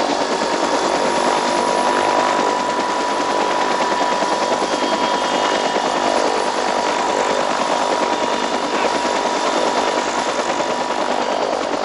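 Helicopter running close by, its rotor beating in a fast, even chop over the engine noise, with a steady high whine running through it.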